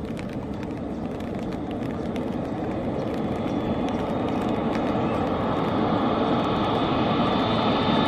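Boeing 777 twin-engine jet airliner on low final approach, its engine noise growing steadily louder as it nears, with a high whine coming through toward the end. Rain ticks on an umbrella over it.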